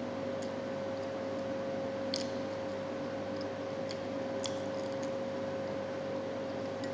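A person chewing a mouthful of soft sandwich bread, with a few short wet mouth clicks, over a steady electrical hum.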